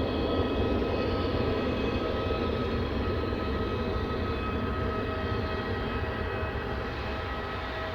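Airbus A320neo's Pratt & Whitney PW1100G geared turbofan engines running, a steady rush with a whine of several even fan tones on top, easing off slowly.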